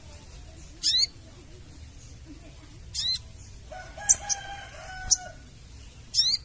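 Sogon bird giving its harsh crecetan chatter in short bursts, three times, each a quick run of high zigzagging notes. Between the second and third burst there is a longer steady pitched call with a few sharp high clicks.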